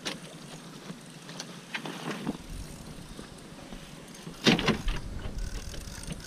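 Scattered knocks and bumps of handling on a fiberglass boat, with one louder thump about four and a half seconds in, over a low rumble.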